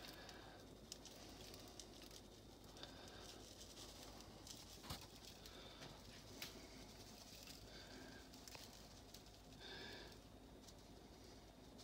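Faint patter of breadcrumbs shaken from a canister onto a tray of cut vegetables, with a few soft clicks.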